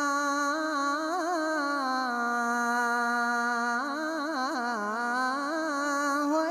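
A single voice singing a long, wordless melody: held notes broken by quick ornamental turns about a second in and again around four to five seconds in, with a lower held note in between.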